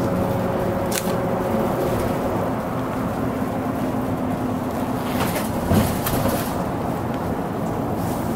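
Mitsubishi Aero Star one-step city bus heard from inside the cabin while running: steady engine and road noise. The engine's hum eases off in the first two or three seconds, with a sharp click about a second in and a few rattling knocks around the sixth second.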